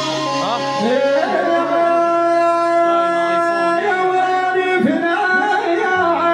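Male voice singing wavering, melismatic lines into a microphone, amplified over an instrumental backing with a steady low drone note that drops lower near the end.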